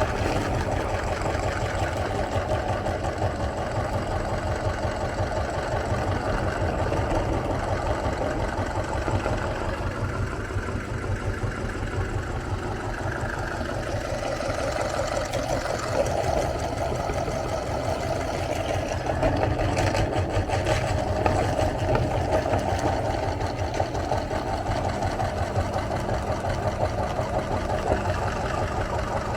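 Electric meat grinder motor running steadily as it grinds banana.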